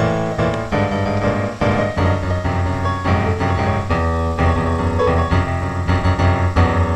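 Background music: a piano-led instrumental with a steady bass line.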